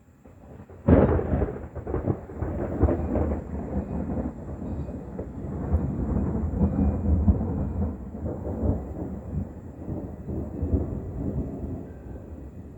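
Very loud thunder: a sudden crack about a second in, then a long rolling rumble that slowly fades away.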